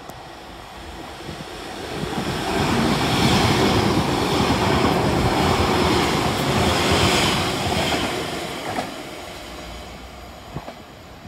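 TransPennine Express Class 397 electric multiple unit passing close by on the near line. It builds over a couple of seconds, holds loud for several seconds, then fades away.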